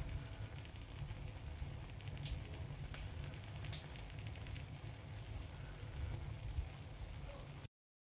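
Oven-roasted quails in foil on a hot baking tray, their fat and juices sizzling with faint crackles and a few sharp pops, over a steady low rumble. The sound cuts off suddenly near the end.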